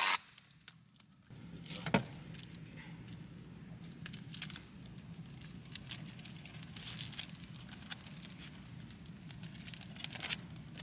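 Scotch tape being pulled off the roll, torn and wrapped around a shift knob: scattered crinkling and tearing, with a sharp click about two seconds in, over a steady low hum.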